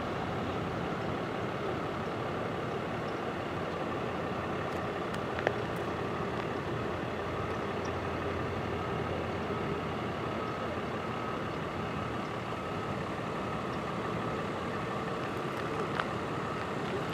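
Steady distant motor-vehicle noise with a faint steady tone, broken by a sharp click about five and a half seconds in and another near the end.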